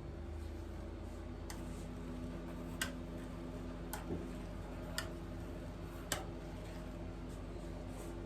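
Five sharp taps about a second apart over a steady low hum.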